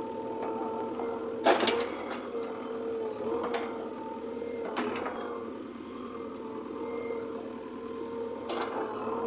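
JCB backhoe loader at work: a steady engine drone with a slightly wavering tone, broken by sharp clanks, the loudest a pair about a second and a half in, with a few more spread through.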